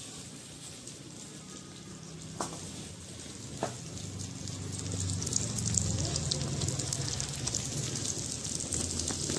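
Fish steaks sizzling and crackling in hot oil on an iron tawa over a wood fire, the sizzle growing louder from about halfway through. Two sharp clicks, a little over a second apart, sound in the first half.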